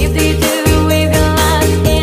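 Background pop music with a steady beat and bass line.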